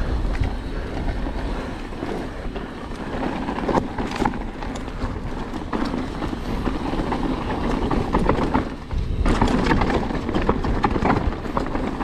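Mountain bike rolling fast down a rough trail: a steady rumble of tyres on dirt with frequent knocks and rattles from the bike over bumps, easing briefly about nine seconds in.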